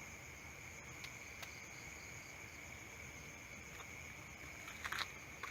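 Crickets trilling steadily in a continuous, faint, high-pitched chorus. A few faint clicks, with a short cluster of them near the end.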